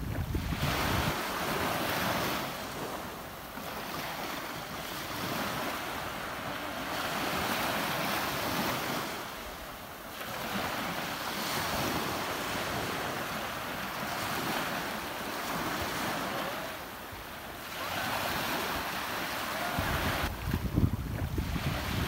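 Ocean surf washing in, swelling and easing every six or seven seconds. Wind rumbles on the microphone in the first second and again near the end.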